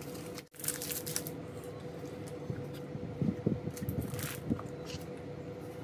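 Chocolate bar packaging being opened: a cardboard sleeve slid off and a foil wrapper crinkling in short, irregular rustles and crackles.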